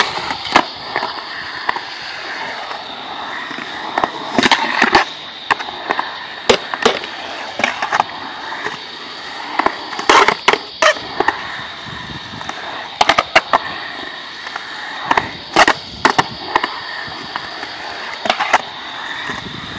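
Skateboard wheels rolling over a concrete bowl, a steady rolling hiss broken every second or two by sharp clacks and knocks of the board and trucks against the concrete and coping.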